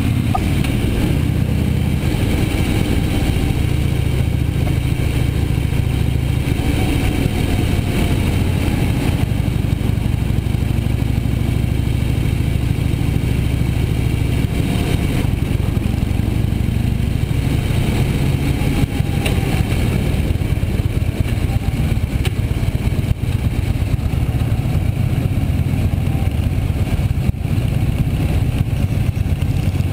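Harley-Davidson motorcycle's V-twin engine running as the bike rides in traffic, its steady note shifting a few times with road speed.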